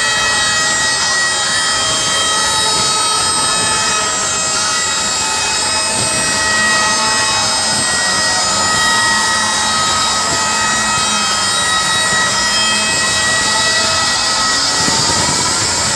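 Large concert PA system playing a loud, sustained drone of several steady high tones over a hiss, with no beat.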